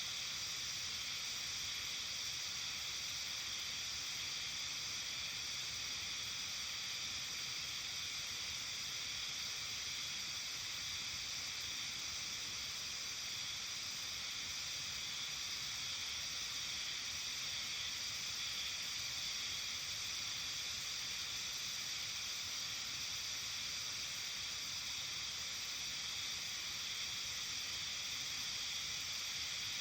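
Evening countryside ambience in a mountain village: a steady, high-pitched hiss with no distinct calls or events standing out.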